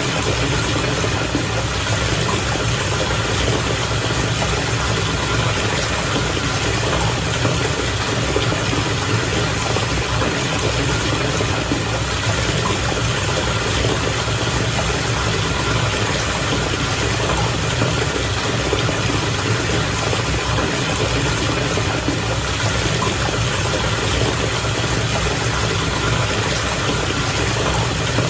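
Bath water bubbling and churning steadily, with a low, even rumble underneath.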